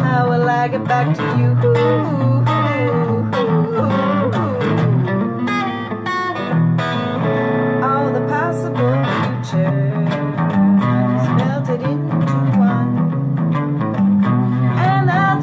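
A woman sings a slow blues song over an electric guitar. The voice drops out a little past halfway, leaving the guitar playing alone, and comes back near the end.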